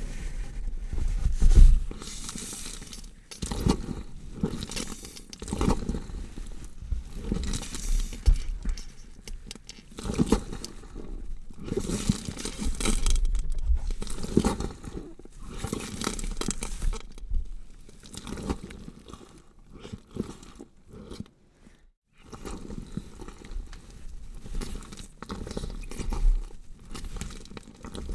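Horror gore sound effect of sawing and cutting through flesh: a run of irregular, noisy strokes with a short break about 22 seconds in.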